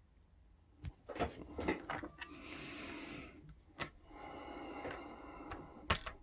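Faint handling of small metal lock parts: a few sharp light clicks and taps as the pins of a disassembled padlock core are taken out and laid out, with two longer soft hissing stretches between them.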